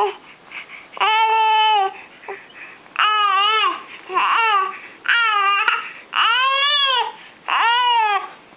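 A baby's voice in about six drawn-out cries, each rising and then falling in pitch, coming roughly once a second.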